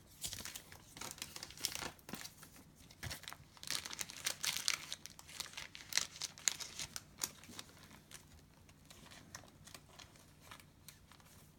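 Crinkling and rustling of thin plastic as trading cards are handled, in irregular crackly bursts that thin out in the last few seconds.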